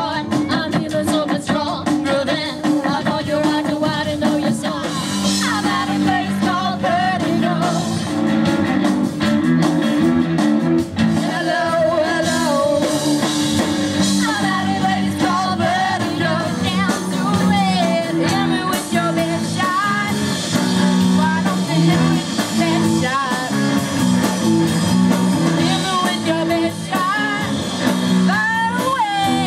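Live rock band playing: a teenage girl singing lead over electric guitars, bass guitar and drums.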